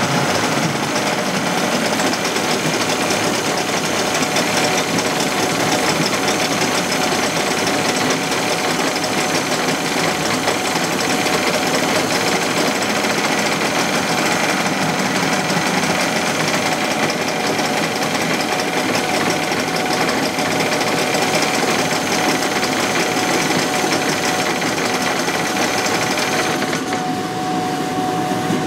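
Suzuki DT-25 twin-cylinder two-stroke outboard motor running steadily. About two seconds before the end, the higher part of its sound drops away.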